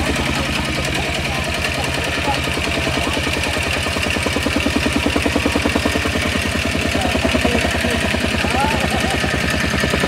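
Tamping rammer (jumping jack compactor) running and pounding loose soil to compact it, with its small engine's noise and a rapid, even beat of foot strikes.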